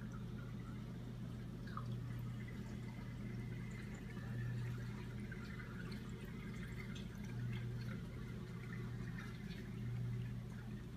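Reef aquarium equipment running: a steady low pump hum that swells every two to three seconds, with faint trickling and dripping of water.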